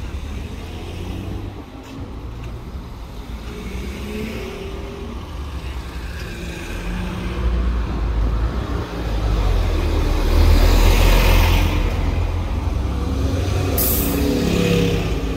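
Heavy road traffic with diesel buses and a coach passing close. The engine rumble swells to its loudest about two-thirds of the way through, and a short, sharp air-brake hiss comes near the end.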